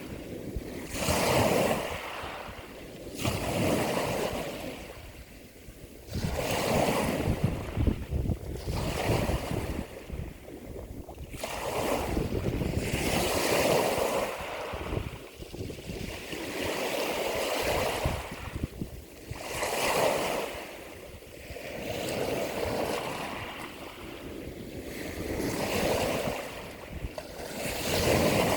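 Ocean waves breaking and washing in, a hiss that swells and fades every few seconds.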